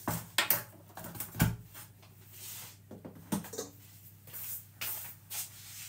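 Scattered light clicks and knocks of a plastic measuring spoon and a baking powder tub being handled and set down on a kitchen worktop, the loudest knock about a second and a half in.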